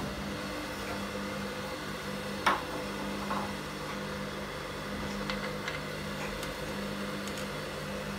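A steady low electrical hum, with one light metallic click about two and a half seconds in and a few faint ticks later as the motor pulley is handled.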